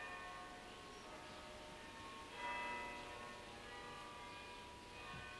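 Church bells ringing faintly. A fresh peal of several overlapping ringing tones starts at the outset, another louder one about two seconds in, and a third near the end, each tone dying away slowly.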